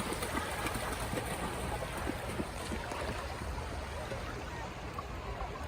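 Shallow seawater lapping and trickling in a steady wash of small gurgles and splashes, over a constant low rumble.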